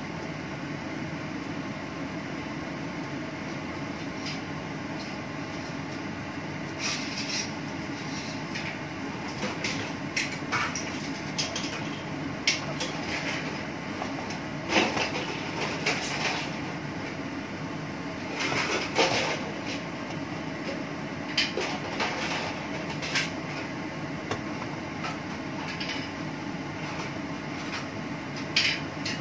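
Steady whirring background noise, with a metal utensil scraping and knocking against a cooking pan at irregular intervals, most often in the middle and again near the end.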